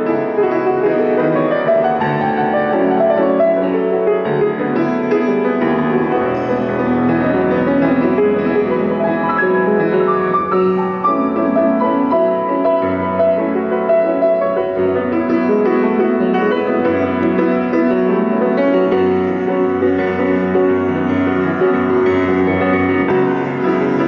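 Solo grand piano played with both hands: a continuous passage with many notes sounding together, without pauses.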